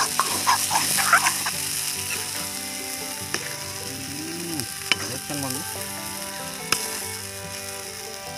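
Mutton sizzling in spiced masala in a pan as it is stir-fried (the Bengali kosha stage), the spatula scraping through it in quick strokes during the first second or so, with a few sharp clicks of the spatula later on.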